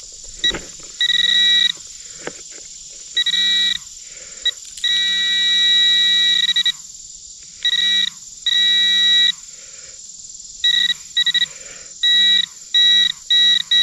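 Minelab Manticore metal detector sounding its target tone in a series of steady-pitched electronic beeps, short and long, as the coil passes back and forth over a target lying in loose dug soil. A steady high insect drone runs underneath.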